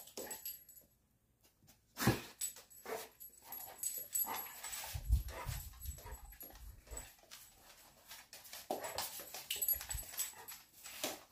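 Labrador retriever searching for a hidden toy, sniffing about, with its claws clicking and scuffing on a wooden floor and scattered low thumps as it moves. The sound drops to near silence for about a second shortly after the start.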